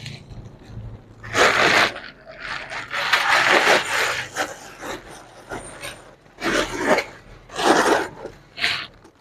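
Clear plastic bag crinkling and rustling in bursts as a handbag is pulled out of it by hand.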